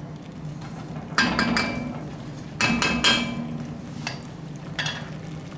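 A metal utensil knocking and clinking against a cooking pot about five times, each knock ringing briefly. A low steady hum runs underneath.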